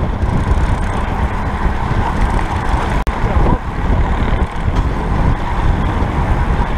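Wind rushing over the microphone of an action camera on a road bike at racing speed: a loud, steady rumble with road and tyre noise under it, briefly cutting out once about three seconds in.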